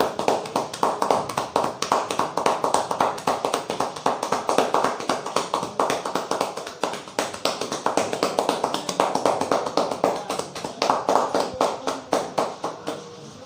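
A barber's hands tapping and patting quickly on a customer's head in a rapid, even rhythm, part of a traditional Indian head massage. The tapping stops just before the end.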